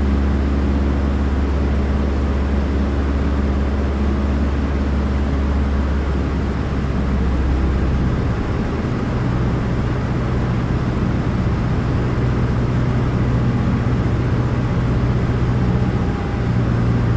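Cessna 150's Continental O-200 four-cylinder engine running steadily over a constant rush of air, with its note changing about halfway through.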